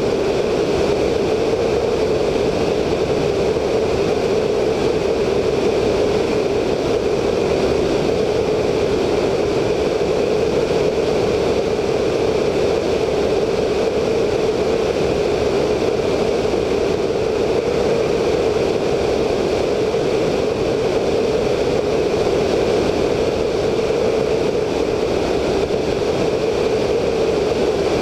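VL Viima II biplane in flight, its Siemens-Halske Sh 14A seven-cylinder radial engine and propeller running steadily, mixed with wind rush over a wingtip-mounted camera's microphone.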